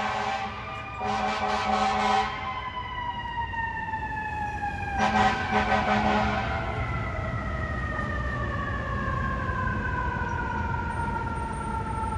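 Fire truck's mechanical siren winding down in one long falling wail. Two bursts of repeated air-horn blasts come about a second in and again about five seconds in, over a low engine rumble.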